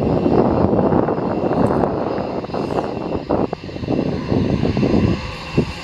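Airbus A320-family airliner's jet engines running on the runway: a loud, rough rumble with a thin steady whine high above it.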